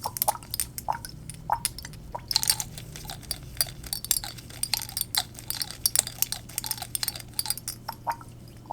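Rapid, irregular tapping and clinking on glass hair-oil bottles, several light clicks a second.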